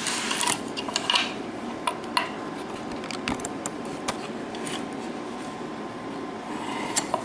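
Small metallic clicks and clinks of a mortise lock cylinder and tools being handled as the cylinder is taken apart, scattered irregularly over a steady background hiss.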